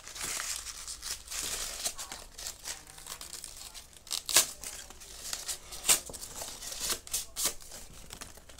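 Sheets of white paper being crumpled and torn by hand: continuous crinkling rustle broken by sharp crackles, the loudest about halfway through.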